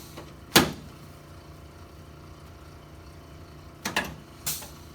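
Sharp knocks from chiropractic adjustment thrusts into the mid-thoracic spine on the treatment table: one loud knock about half a second in, then two lighter ones near the end.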